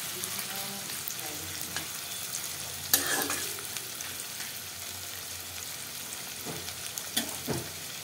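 Sliced onions sizzling in hot oil in an iron kadai, being fried toward brown, while a spatula stirs them and scrapes and knocks against the pan, with the sharpest knock about three seconds in.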